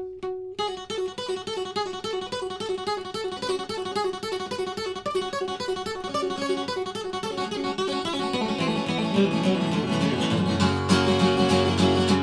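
Acoustic guitar starting a song's instrumental intro about half a second in: a quick, evenly repeating picked figure of single notes, which grows louder and fuller from about eight seconds in.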